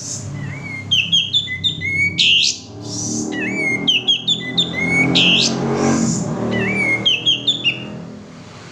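Male sooty-headed bulbul singing loud, repeated phrases. Each phrase is a short rising note followed by a quick run of falling whistled notes and a strong sweeping call, given about three times. A low background hum sits under the song.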